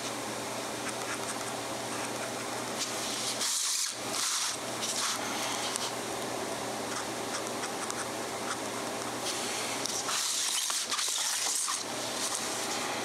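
A fountain pen's 14-karat gold nib scratching across Rhodia paper in drawing strokes, loudest about three and a half seconds in and again from about ten to twelve seconds in. A steady low hum and hiss run underneath.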